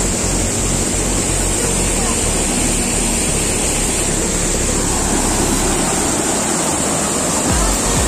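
Rushing water of a rocky mountain stream cascading over boulders: a loud, steady hiss.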